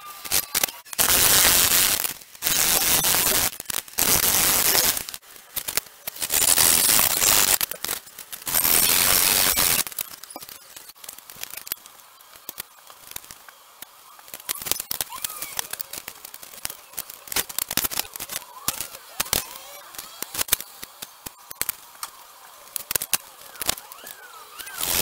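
Pine timber being cut by hand with a hacksaw in a wooden miter box: five spells of sawing strokes in the first ten seconds. After that come quieter scattered clicks and knocks of wooden battens being handled and set down.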